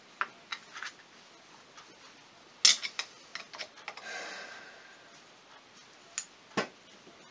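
Scattered small clicks and taps of a screwdriver and hands on a Polaris Sportsman hand-brake master cylinder as its plunger is pushed in to get at the retaining O-ring. The sharpest click comes about two and a half seconds in and another near the end, with a brief soft rustle in the middle.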